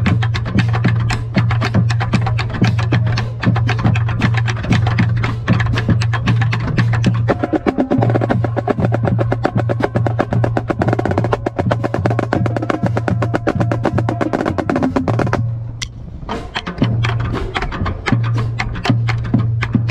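Marching snare drum played with sticks in fast, dense strokes and rolls. The playing thins out briefly about fifteen seconds in, then carries on.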